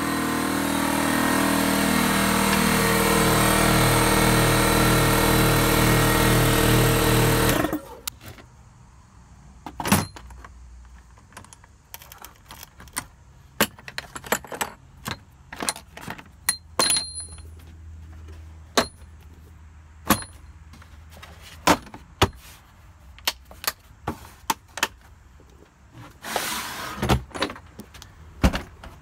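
Lawn mower's small engine running steadily, stopping suddenly about eight seconds in. Then scattered clicks, knocks and clatter of tools and tool cases being handled and put away.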